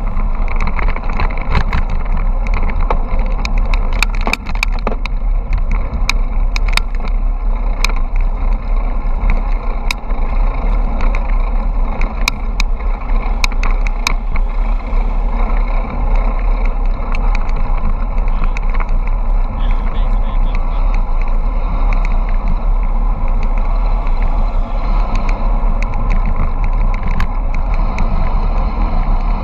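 Wind buffeting the microphone of a camera on a bicycle speeding downhill, a steady heavy rumble mixed with road noise. Scattered sharp clicks and knocks come through, most of them in the first half.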